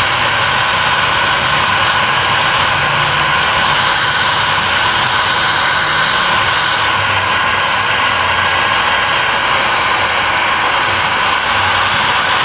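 Electric heat gun (hot air gun) running steadily, its fan blowing hot air onto black plastic bumper trim: a loud, even rush of air with a faint whine.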